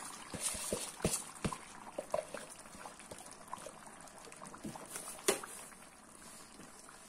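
Dry rice poured into a kazan of simmering duck broth, the grains falling in with a hiss and scattered pops as the broth bubbles. One sharper click about five seconds in.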